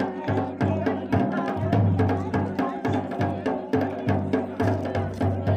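Uttarakhand dhol drum beaten for a jagar dance in a quick, steady rhythm: deep booms about twice a second with sharper stick strokes between them, over steady pitched tones.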